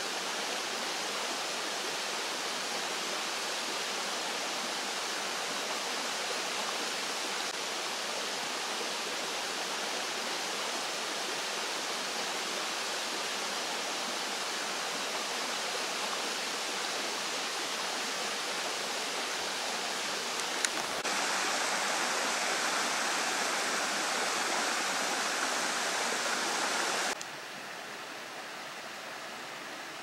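Steady rush of flowing stream water. It turns louder at about 21 seconds in, then drops suddenly to a quieter, duller level about six seconds later.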